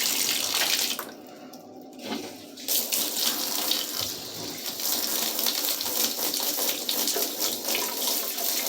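Bathtub tap running, water pouring and splashing into the tub as it fills. The flow drops back for about a second and a half about a second in, then comes on again and runs steadily.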